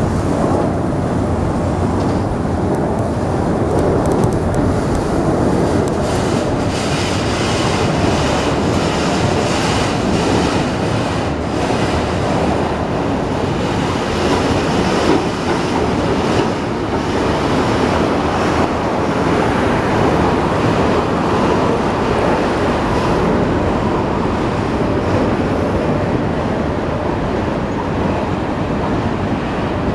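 Union Pacific freight train's cars rolling past: a loud, steady rumble of steel wheels on rail with occasional clicks.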